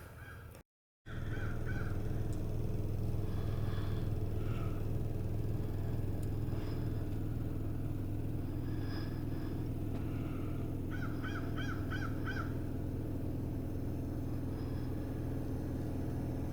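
A steady low machine hum with birds calling over it, ending in a quick run of about five repeated calls.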